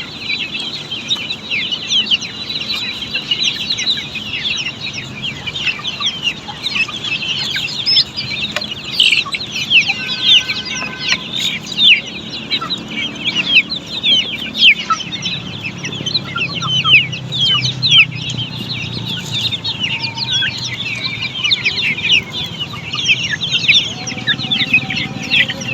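A large brood of chicks peeping continuously, many short high falling cheeps overlapping. A low hum joins in about halfway through.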